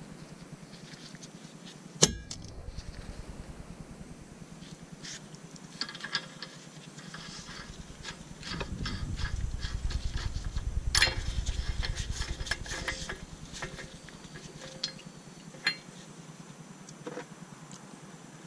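Scattered metallic clinks and clicks as a new CV axle nut and a steel socket are handled and fitted on the front hub, with a sharp click about 2 s in and another about 11 s in. A low rumble rises partway through and fades a few seconds later.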